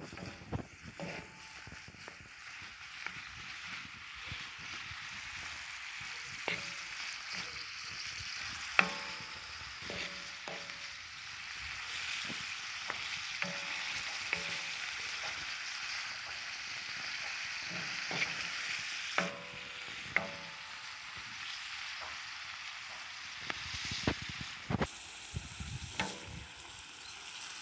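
Diced meat sizzling in its juices on an iron sac griddle, a steady frying hiss throughout. A spatula scrapes and knocks against the iron every few seconds as the meat is turned, some knocks ringing briefly.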